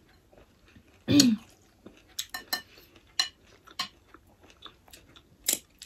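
Table eating sounds: a spoon clinking on ceramic plates, with a dozen or so scattered sharp clicks. A short voiced sound with a falling pitch comes about a second in.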